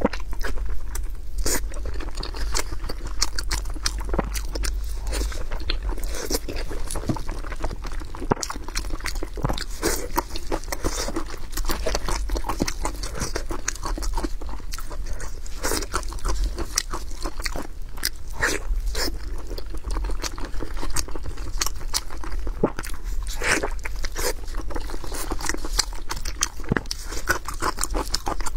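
Close-miked chewing and biting of braised pork head meat in spicy sauce: wet smacking with many sharp crunchy clicks, over a steady low hum.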